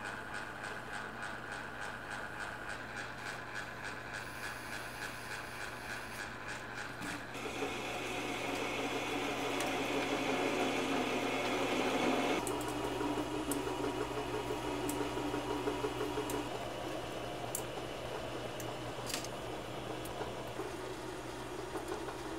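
Metal lathe running with a steady motor hum. From about seven seconds in, a drill bit held in the tailstock chuck cuts into the end of the spinning metal shaft, louder and rougher, until the cut stops suddenly a few seconds later, leaving the lathe running.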